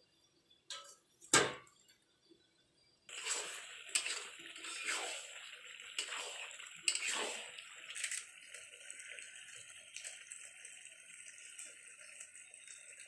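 A lid knocks onto the kadhai about a second in, then the chicken curry sizzles and crackles steadily in the covered pan.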